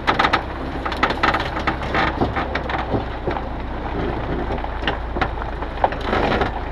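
Loaded log truck on a gravel track: a steady low engine rumble under many irregular crackles and crunches.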